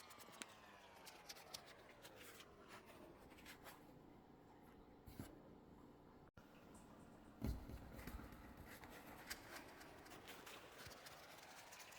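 Very faint handling of a foam banana squishy toy: soft rubbing and small clicks, with one dull thump about seven and a half seconds in. Under it a faint hum slowly falls in pitch and then rises again.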